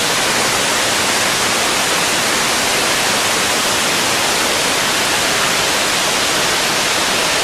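Waterfall rushing: a loud, steady hiss of falling water that holds even, without a break.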